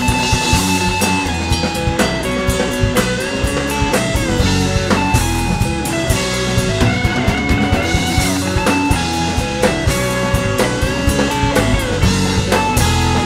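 Live rock band playing an instrumental passage: drum kit, electric guitars and bass guitar, with no singing.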